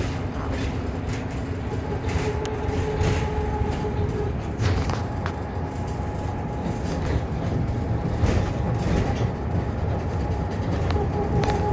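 Inside a moving city bus: a steady low rumble of the bus running on the road, with a faint steady whine through much of it and a few short rattles and knocks.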